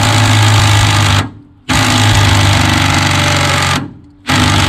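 DeWalt cordless impact driver hammering on a bolt of the golf cart's engine-mount bracket, loosening it to take the bracket off. It runs in three long stretches with short pauses between, the last starting again near the end.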